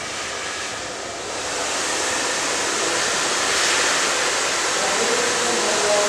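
Handheld hair dryer running, a steady rush of blown air that grows louder over the first few seconds and then holds.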